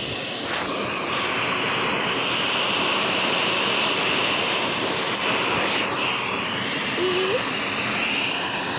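Powerful blow dryer running steadily on a freshly bathed pug's wet coat: a constant rush of air with a high whine.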